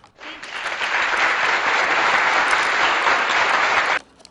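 Applause sound effect: a steady crowd of clapping that starts just after the beginning and cuts off abruptly about four seconds in.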